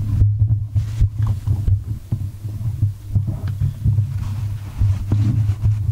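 Handling noise as a camera is moved and set in place: irregular knocks, bumps and rubbing close to the microphone, over a steady low hum.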